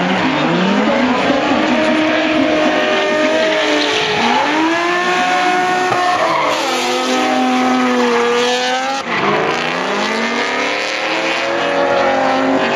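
Two drift cars, a Nissan 350Z and an older sedan, sliding close together: their engines rev up and fall back again and again, over the hiss and squeal of spinning tyres.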